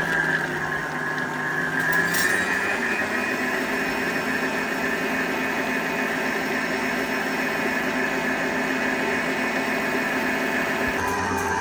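Electric stand mixer running steadily, its wire whisk beating margarine in a stainless steel bowl: an even motor whine with a churning undertone. The tone shifts slightly near the end.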